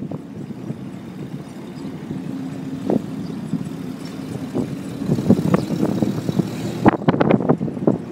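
Open vintage military jeep driving, heard from on board: a steady engine drone with short rattles and knocks from the vehicle, which come thick and fast in the second half.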